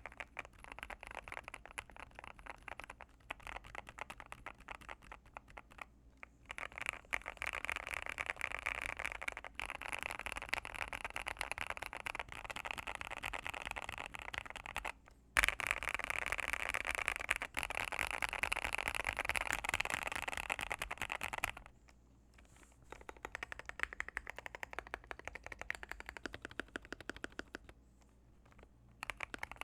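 Mechanical keyboard with Gateron Pro Yellow linear switches, in a gasket-mounted Akko MOD005 case with Akko ASA keycaps, being typed on fast and continuously: a dense run of key strokes broken by a few short pauses, with one louder stroke about halfway through.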